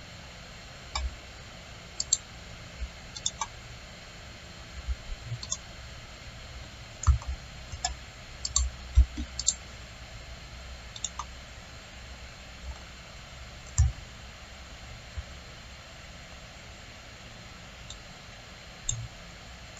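Computer mouse clicking at irregular intervals, about twenty clicks with a cluster a third of the way through, over a faint steady hiss.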